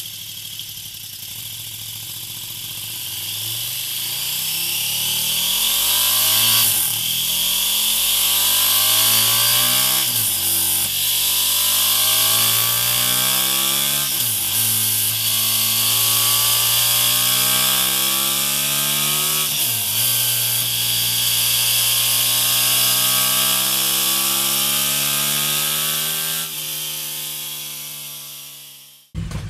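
KTM 1290 Super Duke GT's V-twin engine through its stock exhaust, accelerating through the gears. The revs climb and drop sharply four times, at each upshift, with each gear pulling longer than the last. The revs then ease off near the end before the sound cuts off suddenly.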